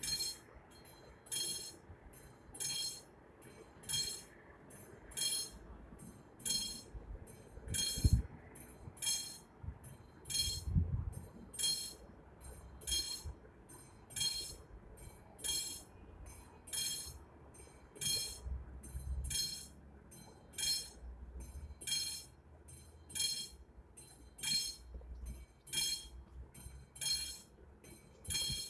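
Classic mechanical warning bell of an AŽD 71 level-crossing signal ringing steadily, about three strokes every two seconds, the crossing's warning that a train is approaching. A few low thuds and rumbles sound underneath, the loudest about eight seconds in.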